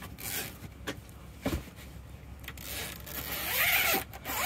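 Wooden cockpit table being pulled out and handled: a few light knocks, then a longer scraping rub with a rising and falling creak near the end.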